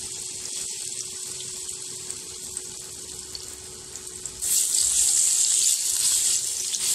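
Climbing perch pieces rubbed with turmeric, chili paste and salt sizzling in hot oil in a frying pan, a steady hiss with small crackles. About four and a half seconds in, the sizzle turns suddenly louder as another piece of fish is laid into the oil.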